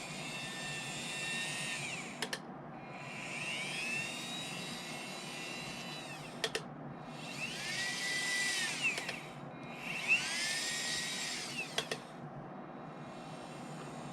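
A small electric motor whirring in four short spurts, each rising and then falling in pitch, with sharp clicks between them, over a faint steady hiss.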